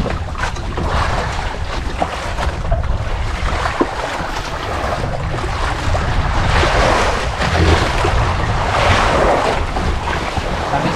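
Wind blowing across the microphone over the wash of sea surf, a steady noise with gusts swelling about seven and nine seconds in.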